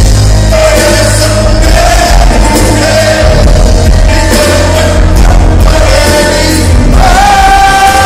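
A live fusion rock band plays loudly: a male voice sings over bass guitar, guitars, drums and hand percussion, with heavy bass. About seven seconds in, a long held note comes in.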